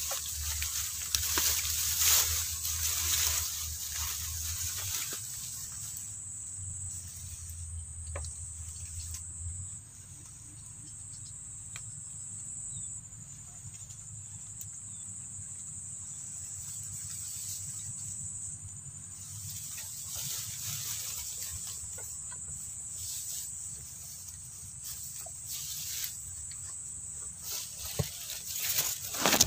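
Steady high-pitched insect trill, as from crickets, with bursts of rustling noise now and then.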